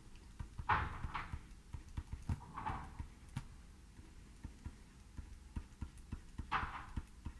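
Stylus writing on a tablet screen: a string of small taps and clicks, with a few short scratchy strokes about a second in, midway and near the end.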